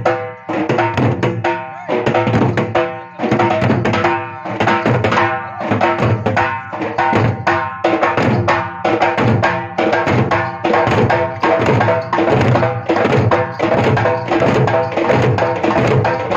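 A group of dollu, the large barrel drums of Karnataka's Dollu Kunita folk dance, beaten together in a fast, steady rhythm of about four strokes a second.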